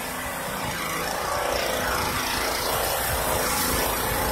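A steady engine drone with a rushing, noisy quality, slowly growing louder.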